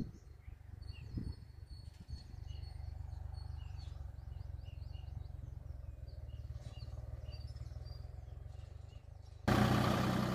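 Small birds chirping in many short calls over a low steady hum. About nine and a half seconds in, the diesel engine of a Deutz-Fahr tractor comes in close and much louder, running steadily.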